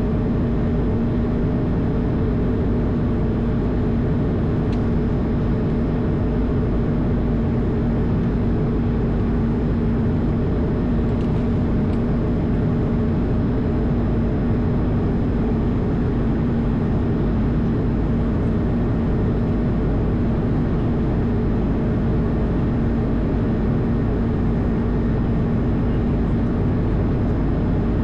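Steady flight-deck drone of an Airbus A220, its Pratt & Whitney PW1500G geared turbofans and airflow making an even roar with a constant low hum.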